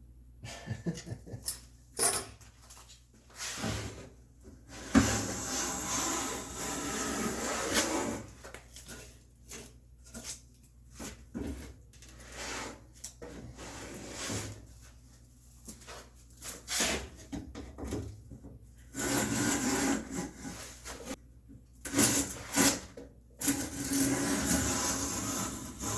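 Hand plane worked along a wooden board: several long scraping strokes of a few seconds each, with knocks and clicks of the tool and board being handled between them.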